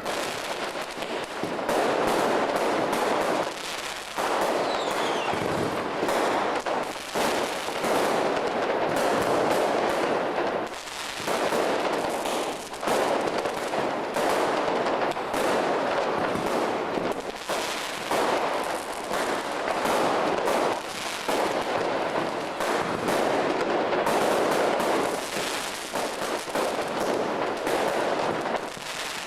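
Diwali firecrackers going off in a dense, continuous crackle of rapid bangs, with a few brief lulls.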